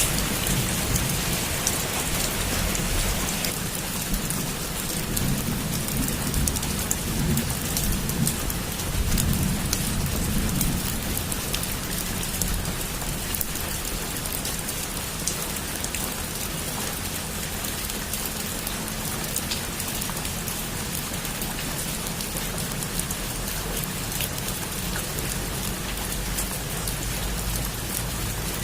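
Heavy rain falling steadily, with scattered sharp drops tapping on a surface. A low rumble of thunder rolls through the first ten seconds or so, then the rain goes on alone.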